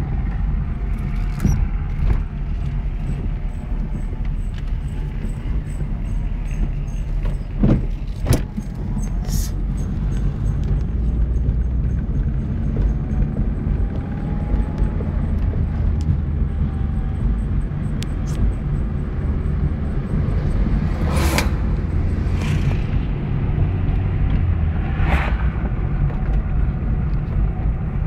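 Car interior road noise and engine rumble, steady while driving, heard from inside the cabin. A few short knocks and brief noises break in, around the middle and near the end.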